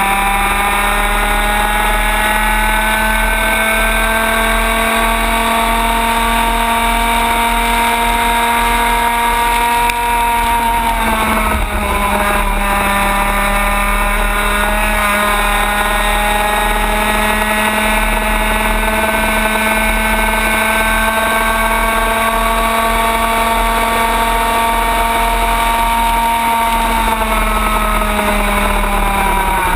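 Racing kart engine running at high revs, heard from on board the kart. Its pitch drops briefly about eleven seconds in as the kart slows, climbs back up, and falls away again near the end as it slows once more.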